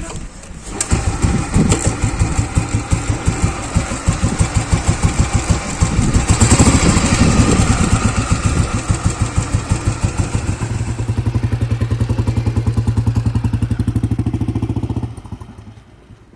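Royal Enfield Bullet 350's single-cylinder four-stroke engine running with a pulsing exhaust beat. It is blipped louder in the middle, settles to an even idle, and stops near the end.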